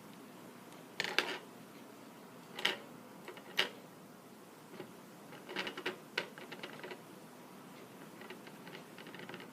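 Light clicks and taps of soldering tools and a small circuit board being handled on a work surface: a few single sharp taps, then a quick flurry of ticks about halfway through.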